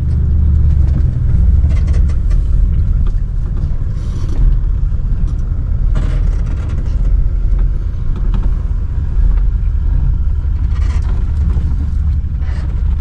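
A four-wheel drive on the move along a dirt track: steady low engine and tyre rumble, with a few brief knocks and rattles.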